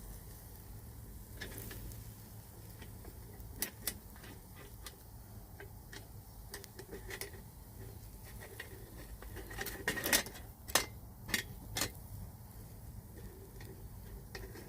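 Scattered light clicks and clinks, with a quick cluster of louder ones about ten seconds in, over a low steady hum.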